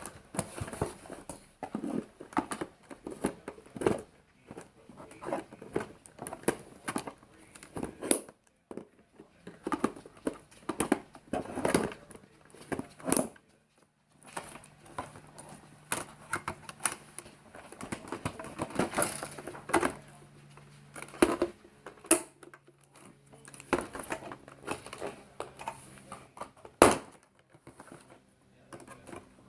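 Toy blaster packaging being handled and its zip ties cut: irregular rustling, crinkling and clicking of cardboard and plastic, with one sharp snap near the end.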